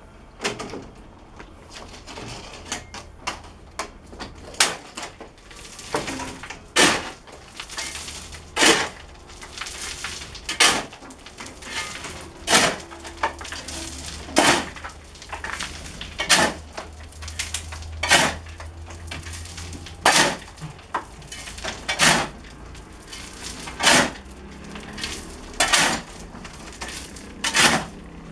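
Steel shovel striking and scraping into stony soil and gravel while a trench is dug, a sharp crunching strike about every two seconds with lighter clinks of stones in between.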